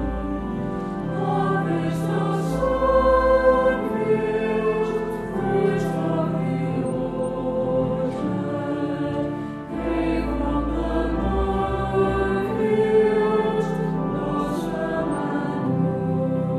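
A choir singing with organ accompaniment: held, sustained chords over deep bass notes.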